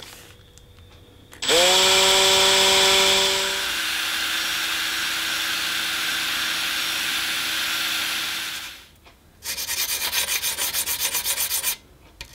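An electric drill spins up about a second and a half in, its tone rising and settling, and runs a small hole saw cutting a ring out of carbon-fibre sheet. The pitch drops as the cutter bites, and the drill stops about nine seconds in. A quick rhythmic rubbing follows, about five strokes a second, for a couple of seconds.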